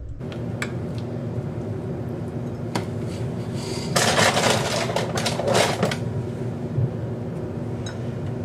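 Steady motor-like hum in a kitchen, with a few light clicks of crockery and a louder rustling clatter about four to six seconds in.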